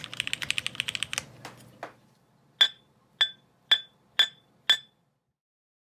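Fast typing on a mechanical keyboard with a ceramic housing, stopping about a second in, with two slower keystrokes after. Then five sharp, ringing clinks about half a second apart, hard taps on the ceramic housing.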